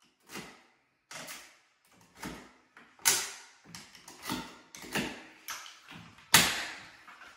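A series of about a dozen irregular knocks as wooden shims are tapped into the gap between the door jamb and the framing at the hinge, to set the door's reveal; two knocks, about three and six seconds in, are louder than the rest.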